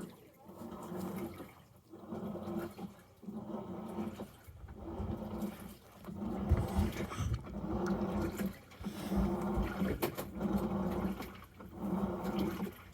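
Samsung washing machine washing: water sloshing in the turning drum over a motor hum, in repeated swells of a second or two with short pauses between them.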